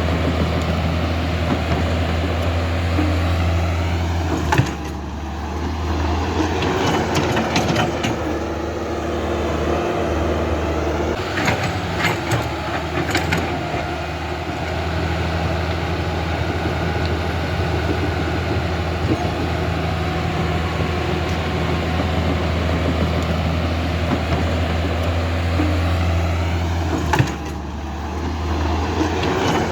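Huina radio-controlled excavator running with a steady low engine-like drone. Sharp clicks come about four and a half seconds in, again around twelve to thirteen seconds, and near the end, where the drone briefly dips.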